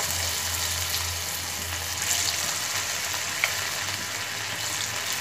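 Marinated chicken pieces deep-frying in hot oil in an iron kadai: a steady sizzle and bubbling, with one sharp click about three and a half seconds in.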